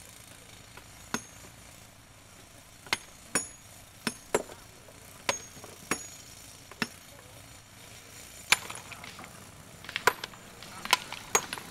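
Hammers striking black stone by hand: sharp clinks with a short ringing, one blow every half second to second and a half as sledgehammers split large boulders. From about ten seconds in, the blows come quicker and lighter as a hand hammer breaks the stone into chips.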